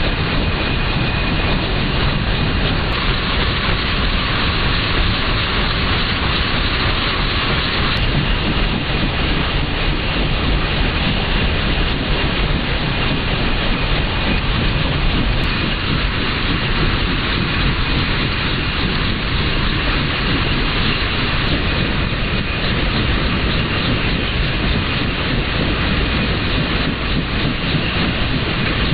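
MV-22B Osprey tiltrotor running on deck while parked, its turboshaft engines and rotors making a loud, steady roar with a faint high whine over it.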